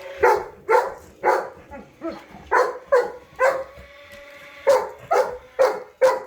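A dog barking repeatedly in quick short barks, about two a second, with a pause of about a second midway.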